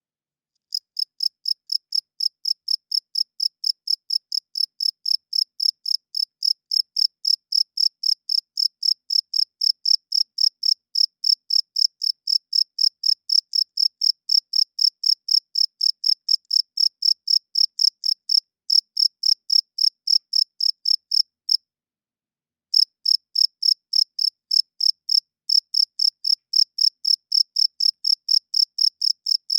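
A cricket chirping in a steady, even rhythm of about three to four high chirps a second, the song a male makes by rubbing its wings together. It starts just under a second in and pauses for about a second near the end before carrying on.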